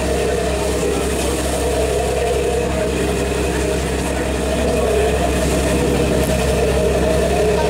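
Passenger ferry's diesel engine running with a steady low drone, heard from on board while under way.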